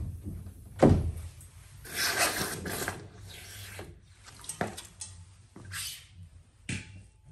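Irregular handling noises of hand tools on a torch-heated water pipe fitting: a heavy thump about a second in, a stretch of scraping and rubbing, then a few short sharp knocks.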